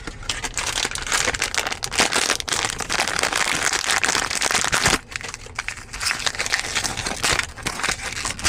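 A pack wrapper crinkling and crackling as it is torn open and handled. It is dense and loud for about five seconds, then turns to lighter, scattered rustling.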